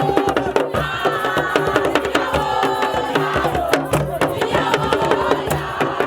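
Music: a voice singing held, wavering notes over fast, busy hand-drum percussion.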